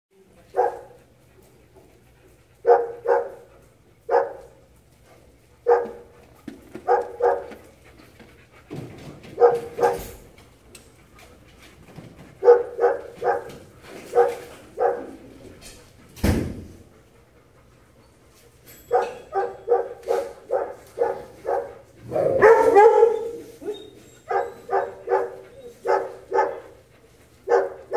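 Dogs play-barking during a rough romp: single barks and quick runs of several barks, with a longer unbroken stretch of barking about 22 seconds in.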